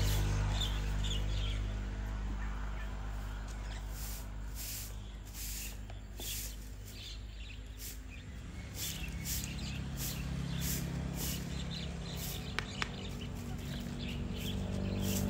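Birds chirping over a high pulsing that repeats about twice a second and a steady low hum that grows stronger about halfway through; two sharp clicks come near the end.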